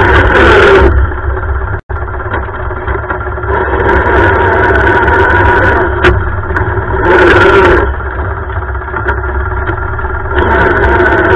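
Lawn tractor engine running and being throttled up and down. It is loud at the start, eases off about a second in, surges again briefly around seven seconds, and picks up once more near the end. A sharp click comes about six seconds in.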